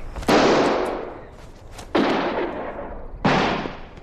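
Three revolver shots, spaced about a second and a half apart, each followed by a long echoing decay.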